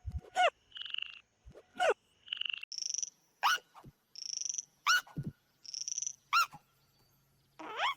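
Cartoon frog croaking in short buzzy ribbits, some higher-pitched than others, alternating with sharp squeaks that sweep down in pitch, one about every second and a half.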